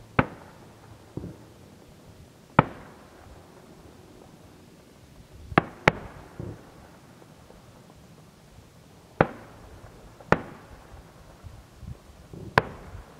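Aerial firework shells bursting one after another, about seven sharp bangs a second or more apart, two of them close together near the middle, each trailing off in an echo. Fainter low thuds come between the bangs.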